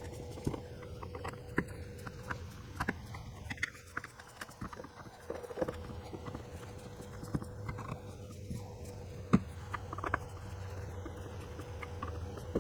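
Hand screwdriver tightening the screws of a plastic vacuum switch housing cover: irregular small clicks and knocks, a few sharper ones, over a faint steady hum.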